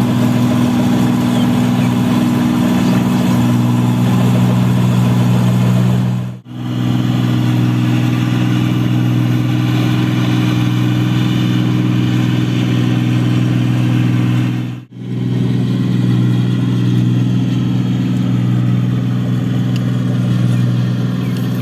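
Rice combine harvester's diesel engine running steadily under load, a continuous loud drone, cut off for a split second twice, about six and fifteen seconds in.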